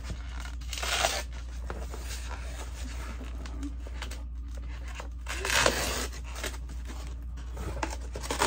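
A cardboard shipping box being cut open and rummaged through: scraping, rustling and tearing of cardboard and packing material, louder about a second in and again around five and a half seconds.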